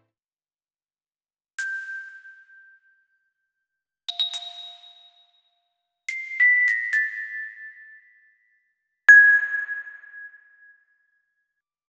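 A sequence of separate ding sound effects with silence between them: a single high ding about a second and a half in, a quick triple ding about four seconds in, a short run of four descending dings about six seconds in, and a single lower ding about nine seconds in that rings out for over a second.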